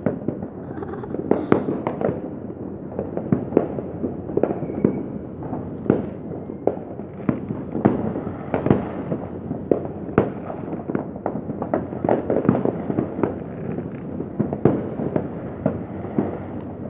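Fireworks going off continuously, many at once: a constant bed of overlapping bangs and crackle, with sharper single cracks standing out every second or so.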